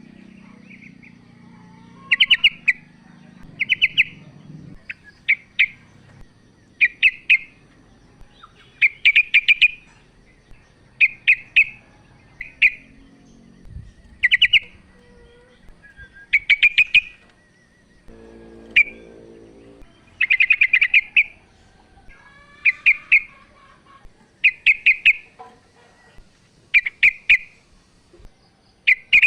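Female sooty-headed bulbul (trucuk) calling a male: short bursts of quick, bright chirps repeated about every one to two seconds.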